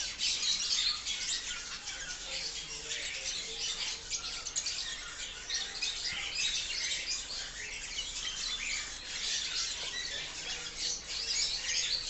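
Many caged aviary birds chirping and twittering at once, a dense, continuous chatter of short high calls.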